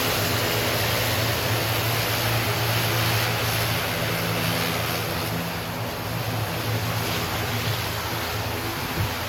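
Aircraft engines running steadily: a broad rushing noise over a low hum, the hum dropping away near the end.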